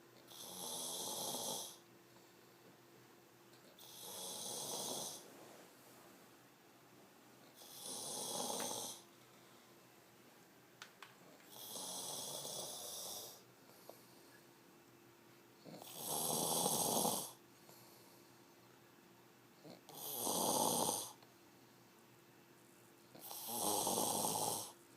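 A sleeping person snoring heavily: seven rough snores, each about a second and a half long, coming about every four seconds.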